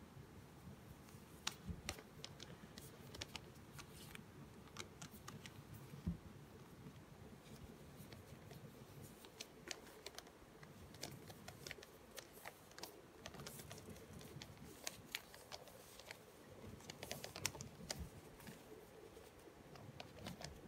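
Faint rustling and scattered small clicks from hands handling a doll and pulling cloth clothes onto it.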